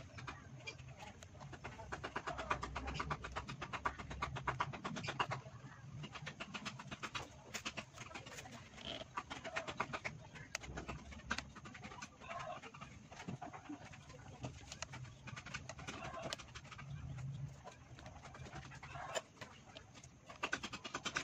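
Geared hand-cranked coil winder turning steadily, its gears clicking rapidly as copper wire is wound onto a transformer bobbin. A bird coos now and then in the background.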